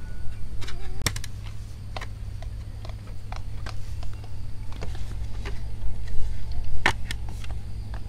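Bamboo slats and a bamboo stool frame knocking and clicking against each other as the seat is fitted by hand: a few sharp knocks, the loudest near the end, with lighter clicks between, over a steady low rumble.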